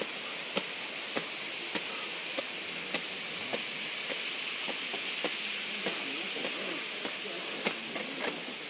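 Steady rush of water flowing over rock, with a light click about every half second and faint voices near the end.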